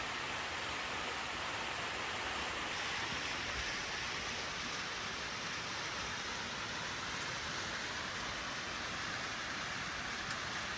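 Waterfall running steadily: a continuous hiss and rush of falling, splashing water.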